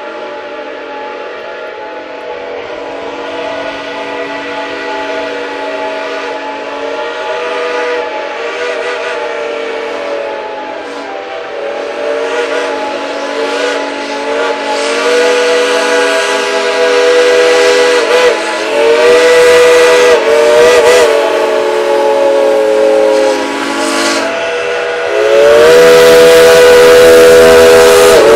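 Several Shay geared steam locomotives blowing their steam whistles together: a chord of long-held whistles that waver in pitch, growing louder as the engines approach. About three seconds before the end it gets suddenly louder, and a deep rumble joins in as the locomotives come close.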